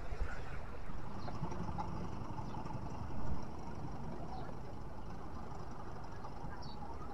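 Steady outdoor noise of wind rumbling on the camera's microphone and small waves washing against the rocks, with one brief louder bump about three seconds in.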